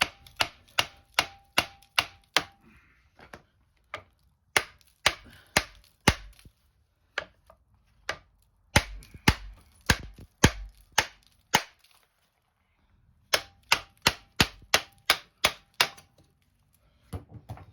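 Hammer blows on the steel parts of a Dana 44 front axle's steering knuckle, struck in several quick runs of about two to three blows a second with short pauses between them, some with a faint metallic ring.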